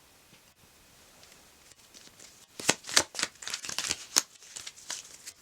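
A deck of tarot cards being shuffled: after a quiet stretch, a quick run of crisp riffling card strokes starts about halfway through.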